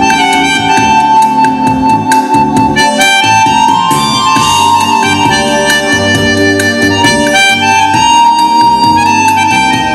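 Live band playing an instrumental: a harmonica carries the melody over keyboard backing with a steady beat.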